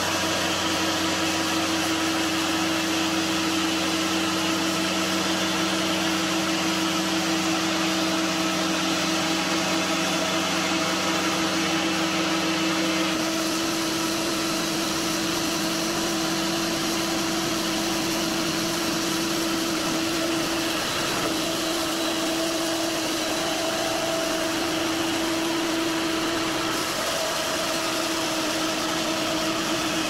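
Cook's band sawmill running under load as its blade cuts through a log: a steady machine drone with a steady humming tone. The deeper part of the sound drops away about thirteen seconds in.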